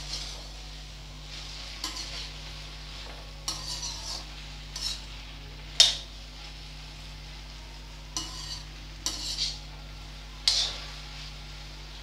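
Metal spatula stirring and scraping chopped okra around a steel wok in irregular strokes, the loudest about halfway through. Under it is a soft sizzle of the okra frying in mustard oil on a low flame.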